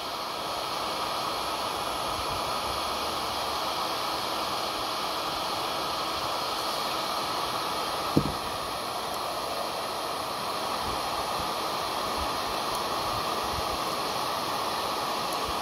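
Hot air gun running steadily, its fan blowing a continuous hiss of air as it heats a chainsaw crankshaft bearing to about 130 degrees for a shrink fit onto a frozen shaft. One short knock about halfway through.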